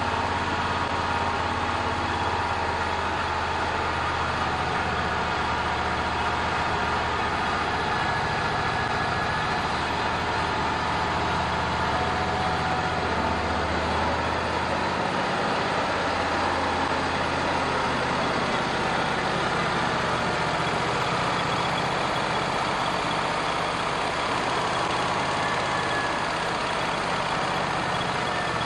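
Wood-Mizer band sawmill running steadily: its engine hums low, under a steady higher whine from the running saw.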